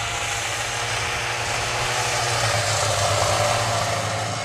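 Snowmobile engine running as it drives past towing a sled, growing louder to a peak about three seconds in and then fading away.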